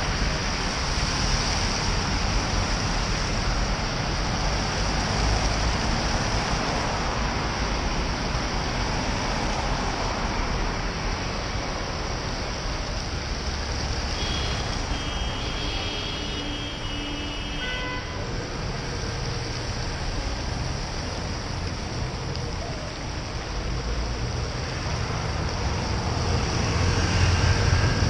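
Road traffic moving on a rain-soaked road: steady tyre hiss from cars and buses on wet tarmac. A few short high tones sound about halfway through, and a lorry's rumble grows louder over the last few seconds as it draws alongside.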